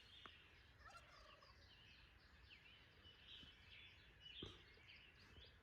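A wild turkey tom gobbling faintly in the distance, among many small songbirds chirping, with a soft knock about four and a half seconds in.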